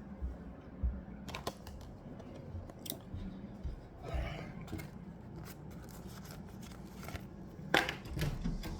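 Irregular small clicks and handling noises, the sharpest about a second and a half in and near the end, with a brief hiss about four seconds in.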